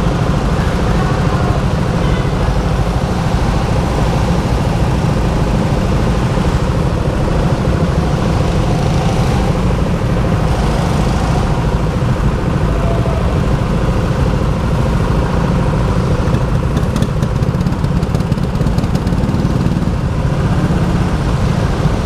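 Go-kart running steadily around a track, heard from the driver's seat: a continuous motor drone over a heavy low rumble, with no marked revving or stops.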